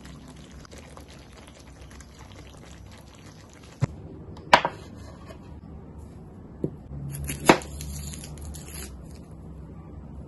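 Kitchen prep on a wooden cutting board: a few sharp knocks as things are set down, the two loudest about four and a half and seven and a half seconds in, with a faint crackly hiss in the first few seconds.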